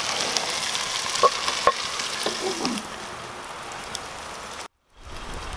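Catfish fillets sizzling in butter in a Lodge cast-iron Dutch oven over a campfire, with a few light metal clicks as the lid is set on. The sizzle turns quieter from about three seconds in, with the lid on.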